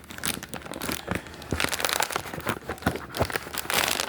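Packaging being crumpled and pulled off by hand as a camera is unwrapped: a run of irregular rustles and crinkles.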